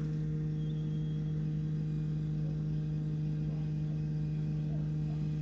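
Low-pressure electric fuel pump of a BMW X5 35d diesel running to prime the fuel system after a fuel filter change: a steady, even hum. It runs smoothly with no sound of air being pushed through, a sign the system is bled of air.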